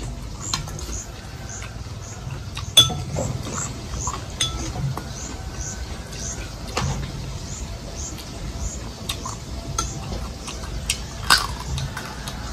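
A metal spoon clinking and scraping against a ceramic bowl of salt and pepper as seasoning is spooned onto fried sparrow, with a sharp clink about three seconds in and another near the end. Faint high chirps repeat about twice a second in the background.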